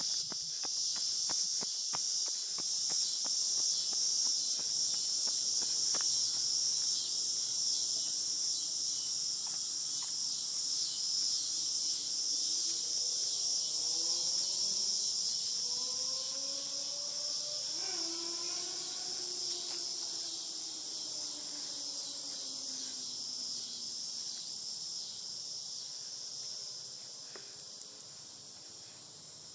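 Steady, high-pitched evening chorus of insects, with a few footstep clicks in the first seconds. About halfway through, a faint droning sound glides up and then falls in pitch.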